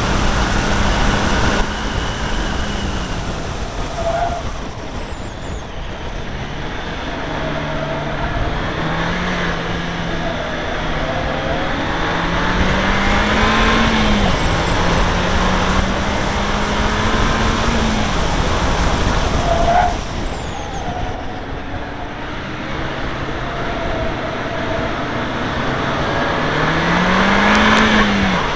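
Seat Leon Cupra R's turbocharged four-cylinder engine pulling hard at track speed. Its pitch climbs and drops back at each of several gear changes, over steady road and wind noise.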